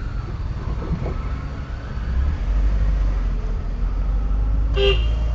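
Low rumble of a car creeping along at walking pace, heard from inside the cabin, growing heavier about two seconds in. Near the end comes one short horn beep.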